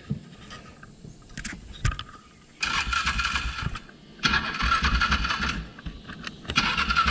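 Polaris Ranger utility vehicle's engine revving in three surges of throttle as the vehicle is backed up slowly, with a pulsing low rumble under each surge and lulls between them.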